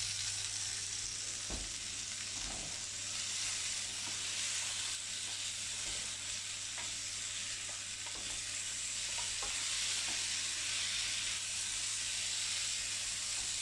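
Diced courgettes and garlic sizzling steadily in a frying pan, with the light knocks and scrapes of a wooden spoon stirring them.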